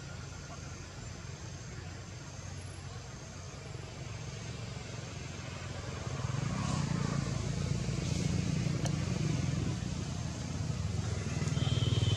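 An engine running steadily with a low pulsing hum, growing louder about halfway through and again near the end.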